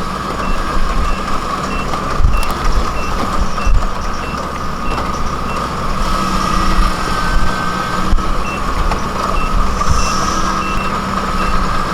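Kubota DC-70 rice combine harvester running, with its warning alarm beeping about twice a second over the engine. The beeping stops for a few seconds in the middle and then resumes.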